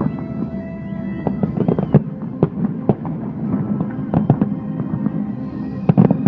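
Fireworks display: aerial shells bursting in many irregular bangs, several close together near the end.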